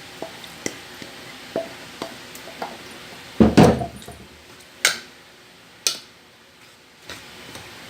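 A spoon and bowl used to mix a wet vegetable mixture: light taps and clinks, then a louder clatter about three and a half seconds in and two sharp knocks about a second apart.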